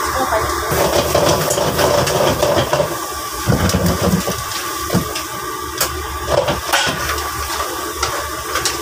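Steady rushing roar of a commercial kitchen's burner and ventilation, with a metal spatula clacking and scraping in a wok as crab is stir-fried.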